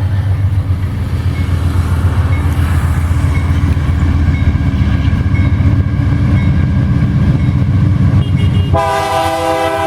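Diesel freight locomotive passing close by with a loud, steady low engine rumble, then its air horn sounding a chord of several tones just before the end.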